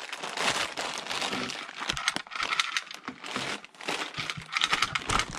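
Clear plastic bag crinkling and crackling in irregular bursts as it is handled and pulled off a projector lamp.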